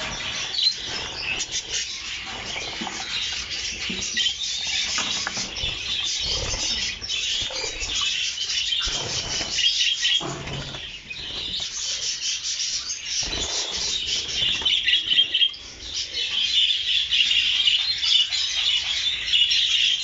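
A flock of budgerigars chattering: a continuous dense mass of quick, high chirps and warbles, with a few dull thumps.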